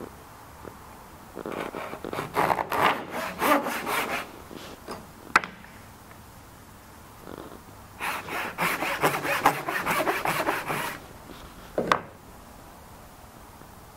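Japanese pull saw cutting wood in quick, short strokes, making the angled practice cuts for a jaguchi joint, in two runs of sawing. A sharp tap comes between the runs and a single knock near the end.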